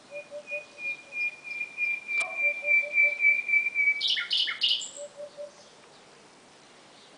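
Nightingale singing: one whistled note repeated about four or five times a second, swelling louder for some four seconds, then broken off by three loud harsh notes and a brief high squeak. A fainter, lower repeated note runs underneath, and there is a single sharp click about two seconds in.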